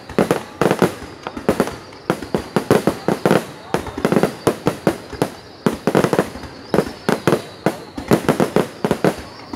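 Aerial fireworks going off in a rapid, irregular string of sharp bangs, about two or three a second.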